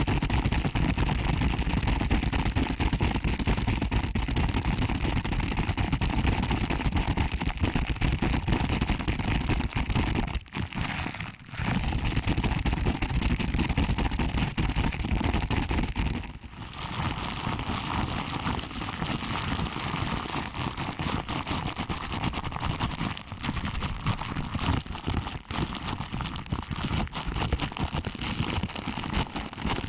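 Ears of a binaural microphone being pinched and rubbed by hand: a dense, continuous crackling rustle close to the microphone, broken by two short pauses, about a third of the way through and just past halfway.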